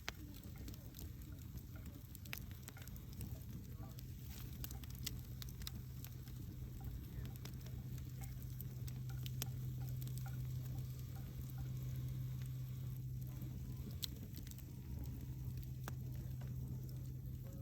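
Wood fire crackling, with scattered sharp pops and snaps over a steady low hum.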